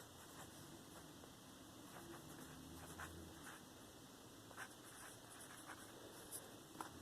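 Faint scratching of a pen or pencil writing on paper, with a few scattered short strokes.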